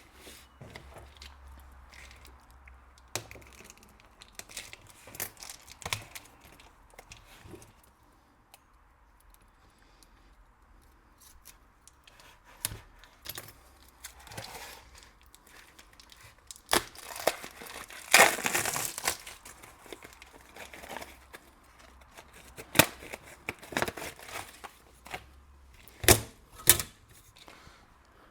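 Packaging being torn open and crinkled by hand while unwrapping a circuit board, with scattered handling clicks and knocks. The loudest stretch of tearing comes about two-thirds of the way through.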